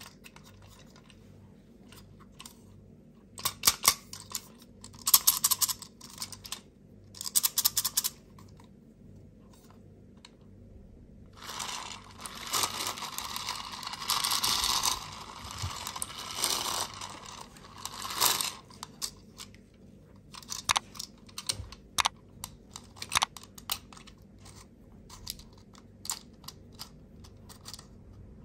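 Plastic candy toy being handled: three short bursts of rattling and clicking, then its small handheld fan spinning with a steady whir for about seven seconds, then scattered plastic clicks and taps.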